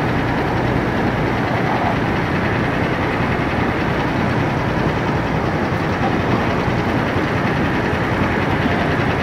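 Mini tractor engine running steadily with an even, unbroken noise.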